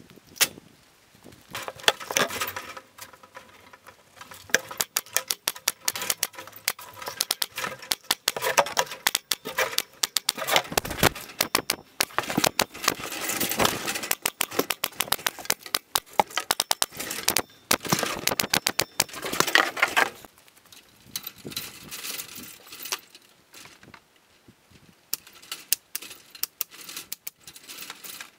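A dense, irregular run of sharp clicks and knocks from a handheld power fastening tool driving fasteners into fibreboard wall sheathing, mixed with handling knocks. The clicking thins out after about two-thirds of the way through.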